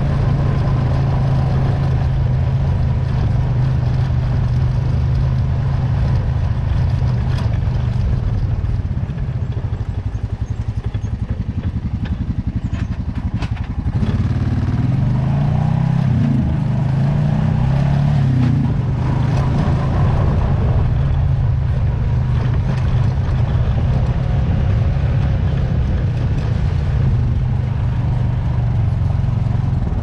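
Honda Foreman ATV's single-cylinder four-stroke engine running while riding a dirt trail, a steady low drone. It eases off about nine seconds in, then picks back up about fourteen seconds in, wavering in pitch for several seconds.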